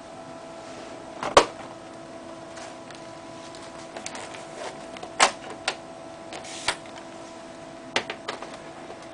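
Scattered sharp clicks and knocks of hard parts being handled on a laptop during a hard drive swap, over a steady electrical hum. The loudest click comes about a second and a half in, a cluster follows in the middle, and a few more come near the end.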